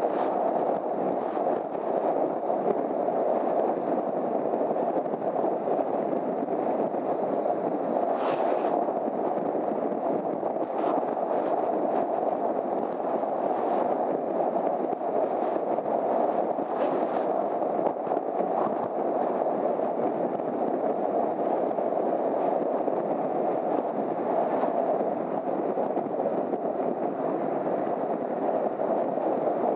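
Steady rush of wind and road noise while riding a Honda CBR250R motorcycle at speed, with a few faint brief knocks.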